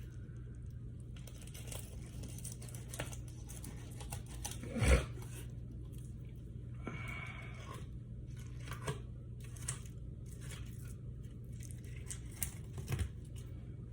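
Fillet knife cutting and scraping through a perch's skin and flesh around the ribs: irregular short tearing and rasping strokes over a steady low hum, with one louder thump about five seconds in.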